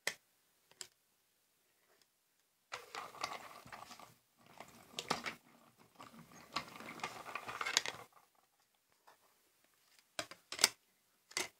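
Small hand-cranked die-cutting machine feeding a sandwich of acrylic cutting plates and a metal die through its rollers, a grinding, ratcheting crank sound lasting about five seconds with a brief break midway. Sharp clicks of the plastic plates being handled at the start and near the end.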